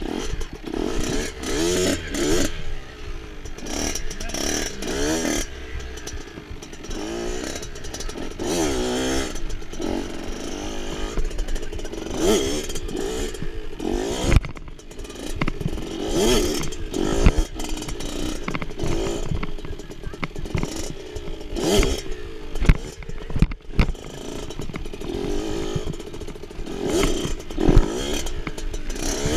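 Small dirt bike engine revving up and down again and again while riding at low speed, its pitch rising and falling throughout. Occasional sharp thumps are mixed in.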